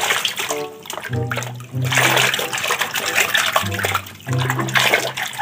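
A hand sloshing and swishing through a plastic tub of soapy water. Background music with sustained low notes plays along with it.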